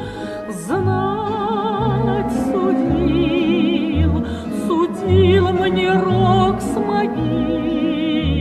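A Russian folk song sung in an operatic style with strong vibrato on held notes, over an instrumental accompaniment with changing bass notes.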